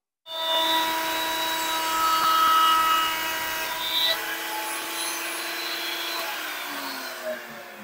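A router in a router table switches on with a sudden start and runs at a steady high pitch while chamfering the edge of a wooden frame rail, with its dust-extraction vacuum running. Near the end the router is switched off and winds down, its pitch falling.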